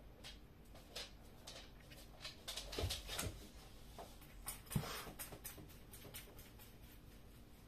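Faint tabletop handling noises: scattered light clicks and taps, with soft knocks about three and five seconds in, as a plastic bottle of white glue is picked up and set down on a cutting mat.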